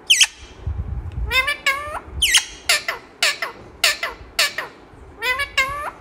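Indian ringneck parakeet mimicking a cat's meow: a quick series of about ten short meow-like calls, several of them sliding down in pitch.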